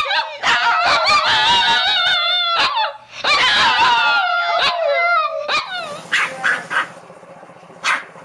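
Small dog letting out long, high-pitched, wavering howls, with a short break about three seconds in, then a few short yips near the end.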